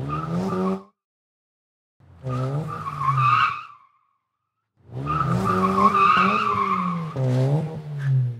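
Car engine revving with tyres squealing, in three bursts cut apart by dead silence, the last and longest beginning about five seconds in. The engine note rises and falls in pitch under a steady squeal.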